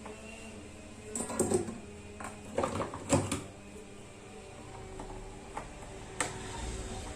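Soft background music with held tones, broken by a few clattering knocks and clicks, loudest about a second and three seconds in.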